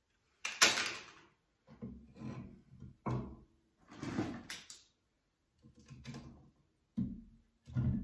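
Firewood and thin kindling sticks being laid in a fireplace: a string of irregular wooden knocks and clatters, the loudest about half a second in.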